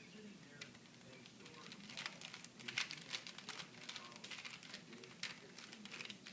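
Rubik's cube being turned by hand: short plastic clicks and clacks of the layers rotating, sparse at first, then in quick runs from about two seconds in.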